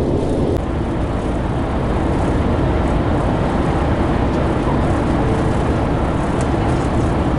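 Steady rumble of a car driving at highway speed, tyre and engine noise heard from inside the cabin.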